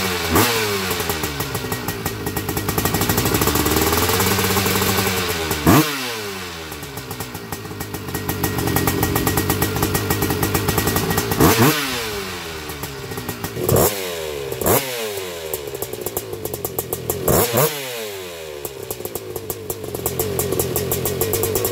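1987 Honda TRX250R's single-cylinder two-stroke engine running through a break-in heat cycle: held at varying revs and blipped sharply about six times, each rev snapping up and dropping straight back to idle.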